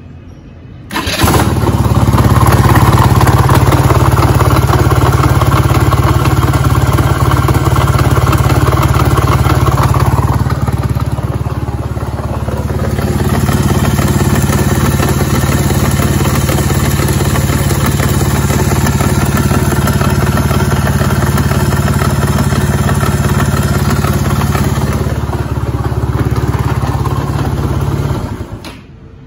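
SYM Jet S 125 scooter's single-cylinder engine started about a second in and run, louder for the first ten seconds or so, then steadier and a little quieter until it is shut off near the end. It runs with a loud abnormal noise whose cause is unknown without teardown; the crankshaft or the starter clutch is suspected.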